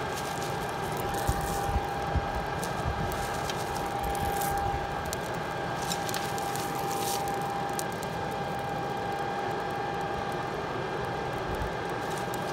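Electric air blower feeding a coal forge, running with a steady hum and a constant whine. A few sharp knocks come a second or two in, with brief crackles in the middle.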